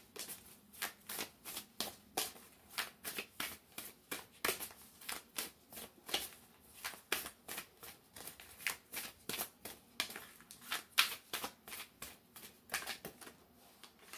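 A deck of reading cards being shuffled by hand: a steady run of short card slaps and flicks, about three a second.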